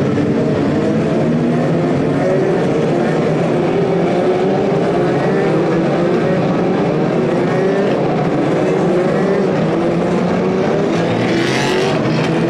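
A field of race cars running together, many overlapping engine notes rising and falling as the cars go by. There is a short rush of hiss near the end.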